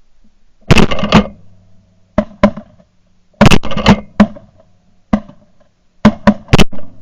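Loud, clipped goose clucks and honks in quick bursts of two or three, the staccato calling used to pull geese in.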